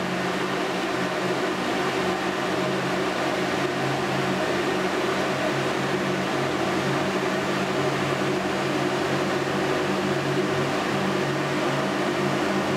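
ELCO forced-draught gas burner firing steadily just after ignition: a steady rushing noise with a constant low hum from its combustion-air fan.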